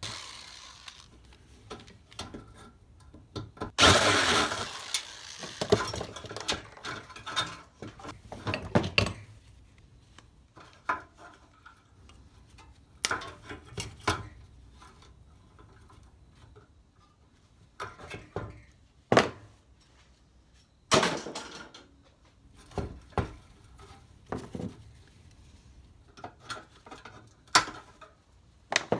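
Metal parts of an old heater clanking, rattling and scraping as it is taken apart by hand with a flathead screwdriver: scattered knocks and clinks, with a longer scrape about four seconds in and another about twenty-one seconds in.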